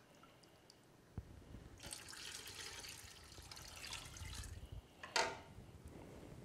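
Fish stock poured from a glass measuring cup into a pot of tomato stew base and scraped out with a wooden spoon, the liquid pouring and sloshing for a few seconds, followed by a single sharp knock.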